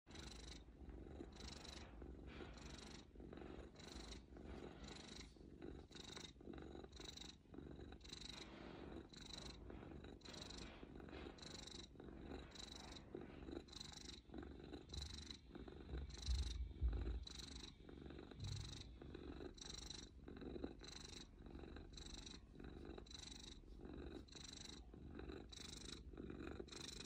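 Orange tabby cat purring, faint and steady, each breath in and out heard as a soft even pulse, about three every two seconds. A few low bumps come about halfway through.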